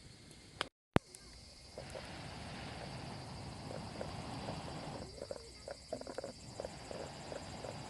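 Campfire crackling with many small irregular pops, over the steady high chirring of night insects. A brief gap and a sharp click about a second in.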